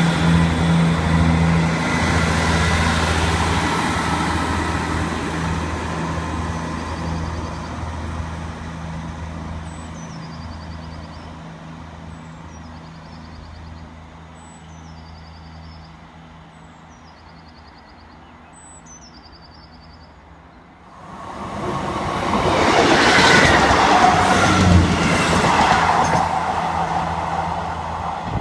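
Diesel multiple unit's underfloor engine drone, a steady low hum fading as the train pulls away, with a small bird's short falling chirp repeating midway. About 21 seconds in, a loud rushing noise rises suddenly and holds.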